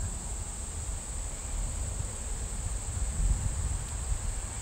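A steady, high-pitched chorus of insects trilling without a break, over a low, uneven rumble.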